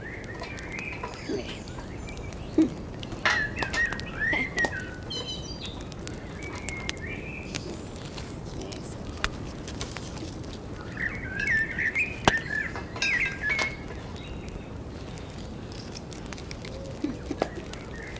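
Small songbirds chirping in short, quick phrases that come and go, with a brief high trill about five seconds in and a livelier bout of chirping near the two-thirds mark. A few light clicks sound here and there.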